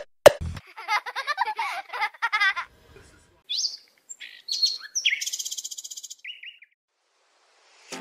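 Bird chirp sound effects: a click, then a run of warbling chirps, then scattered whistles, gliding tweets and a quick trill. The sounds stop about a second and a half before the end.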